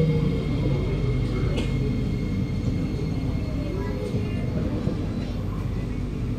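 Kawasaki Nippon Sharyo C751B metro train slowing as it pulls into a station. The traction motors' falling whine fades out in the first half-second, leaving a steady low rumble from the car, with faint falling tones again in the middle.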